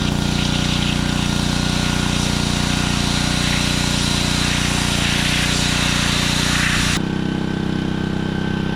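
Pressure washer's engine running steadily under the hiss of high-pressure water spray. The spray cuts off suddenly about seven seconds in, and the engine keeps running.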